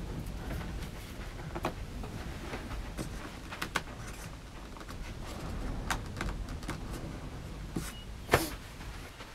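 A few scattered light clicks and knocks from hands at work over a low steady rumble, with one sharper knock about eight seconds in as a hand knocks against the camera.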